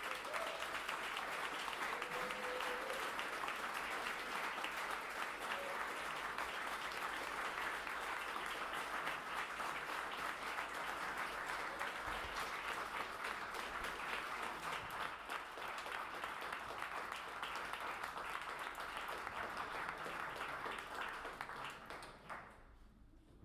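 Audience applauding: dense steady clapping that starts suddenly and dies away near the end.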